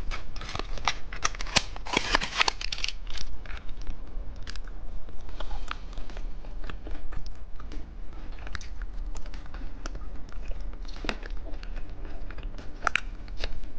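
Plastic candy packaging crinkling and crackling as it is opened and handled, with many small clicks and rustles, densest in the first few seconds.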